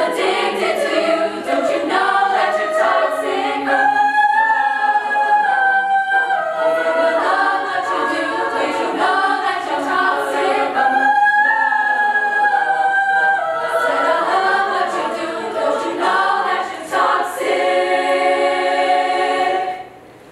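Women's choir singing a cappella in harmony, ending on a long held chord that cuts off sharply near the end.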